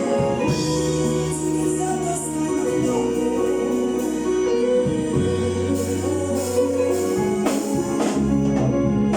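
Gospel choir singing to instrumental accompaniment, with long held bass notes that change every second or two and occasional percussion hits.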